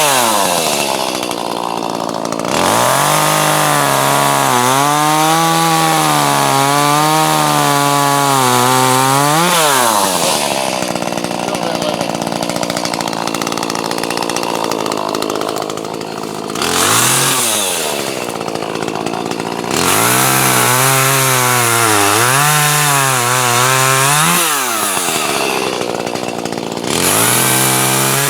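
Two-stroke chainsaw cutting wood. The engine revs up and drops back again and again, about four times over the stretch, swinging in pitch as it works through the cuts.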